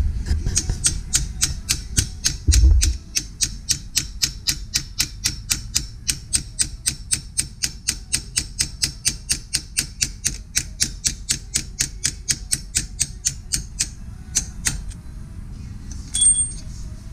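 Rapid hammer taps on a steel bolt used as a punch, driving the pin out of a transmission shift linkage: an even run of about four metal-on-metal strikes a second for some thirteen seconds. A few last taps follow, then a short ringing metallic clink near the end.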